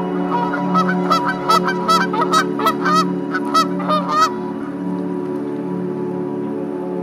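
A Canada goose gives about a dozen rapid, sharp honks over the first four seconds, then stops. A steady drone of background music runs underneath.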